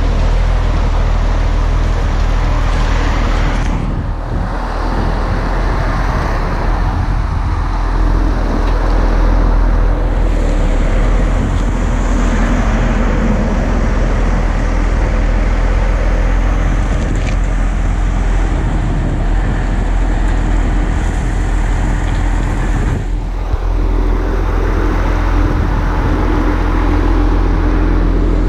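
Volvo motor grader's diesel engine running steadily under load, with gravel scraping and crunching under the moldboard blade and tyres as it grades.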